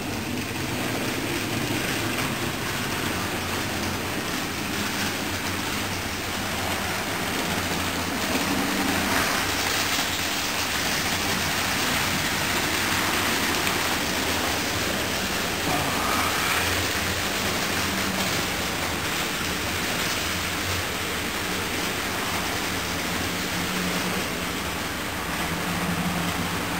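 Model train running on the layout's track: a steady rolling rumble and hiss with a faint low motor hum.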